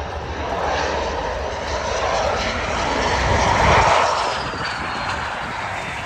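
Saab JAS 39 Gripen's single jet engine as the fighter lands and rolls out on the runway. The jet noise swells to its loudest about four seconds in as the aircraft passes. A thin whine then falls in pitch as it moves away.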